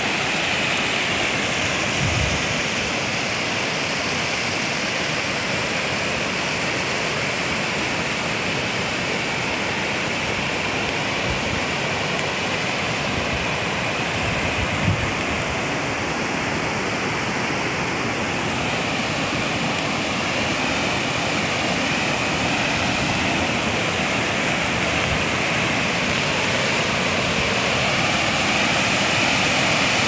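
Brown river water rushing and splashing over flat granite rock slabs and low cascades, a steady rush with no break. A brief low thump about halfway through.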